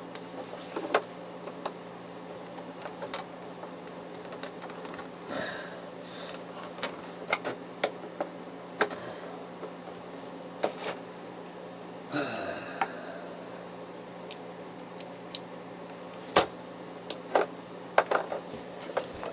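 Screwdriver clicking, tapping and prying at the black plastic case of an HP DeskJet D1660 inkjet printer to work the cover off: many scattered sharp clicks with a few short scrapes, over a steady low hum.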